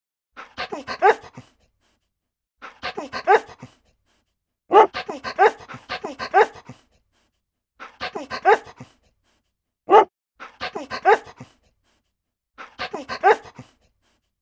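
A dog vocalizing: about seven short runs of rapid pitched calls, each a second or so long, with silence between.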